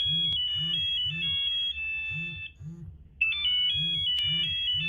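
Old phone ringtone: a high electronic melody of stepped, held beeping notes over a low pulsing beat. The melody plays twice, with a short break about two and a half seconds in.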